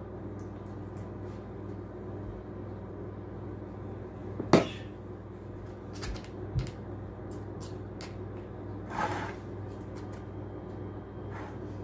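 Spoon knocking and scraping while spreading thick cupcake batter into paper liners in a metal muffin tin, with one sharp knock about four and a half seconds in, a few lighter taps and a short scrape later, over a steady low hum.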